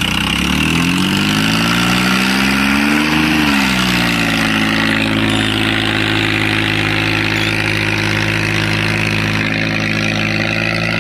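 Mahindra 265 DI tractor's three-cylinder diesel engine revving up for about three seconds, then dropping back and running steadily under load as it pulls a disc harrow through tilled soil.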